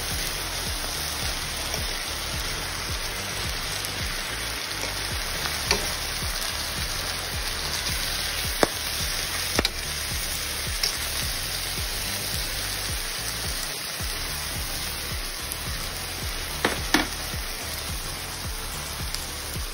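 Salmon and vegetables sizzling steadily in a stainless steel frying pan as they are stirred, with a few sharp clicks of the spatula against the pan.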